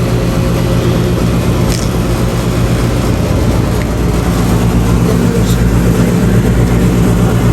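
Electrolux clothes dryer running: a steady motor hum with a low rumble of the turning drum.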